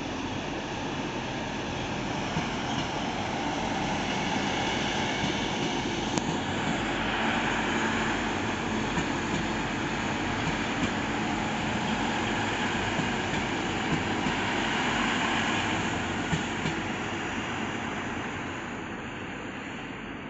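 Two coupled red DB Regio multiple units passing along the track, a steady rumble of wheels on rail that builds over the first few seconds, holds, and fades away near the end, with occasional light clicks.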